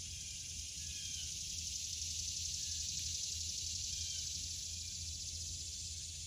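Cicadas singing: a steady, high-pitched buzz that swells a little midway and eases off toward the end.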